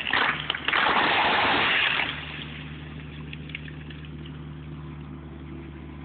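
A pine tree crashing down, its trunk and branches swishing and cracking loudly for about two seconds. Then the Bobcat skid-steer loader that pulled it over runs steadily at idle.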